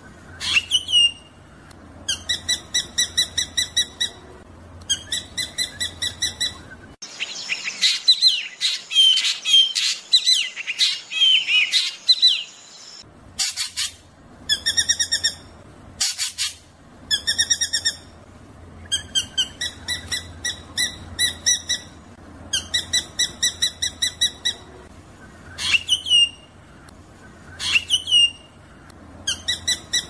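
Drongo song: repeated rolling bursts of rapid, evenly spaced ringing notes, each burst lasting about a second and a half, alternating with single sharp whistles that sweep steeply downward. Roughly a quarter of the way in, the pattern gives way for about six seconds to a denser jumble of varied chattering and whistled notes, then the rolling bursts resume.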